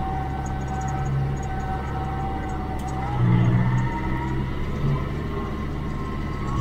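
David Brown 1494 tractor's four-cylinder diesel engine running steadily under way, heard from the driver's seat, with a thin whine above it. About three seconds in the engine gets louder for a moment and the whine rises slightly in pitch.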